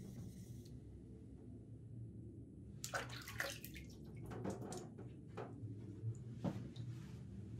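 Water splashing and dripping into a water tray as it runs off a wet knife blade and hand, in a cluster of irregular splashes and drips from about three seconds in, with one more splash near the end, over a steady low hum.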